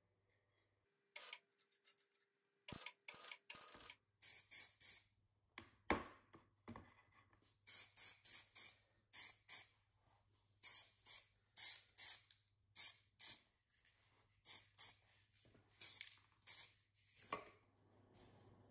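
Aerosol spray-paint can spraying in a long series of short hissing bursts, about one or two a second, as a small metal bracket is painted.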